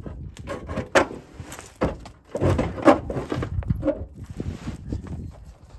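A string of irregular metal clunks, knocks and scrapes as a car engine is shifted out from under the car. The busiest, loudest stretch comes about two and a half to three seconds in.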